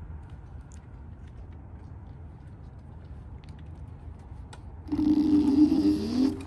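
Kaabo Wolf King dual-motor electric scooter pulling away from a standstill: a sudden, loud motor whine starts about five seconds in, with pitches that bend as it speeds up and a thin high tone above them. Before that, only a low steady rumble.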